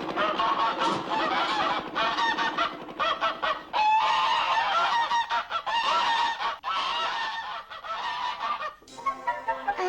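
Cartoon soundtrack of repeated honking, squawking animal-like calls, with a longer held call about four seconds in.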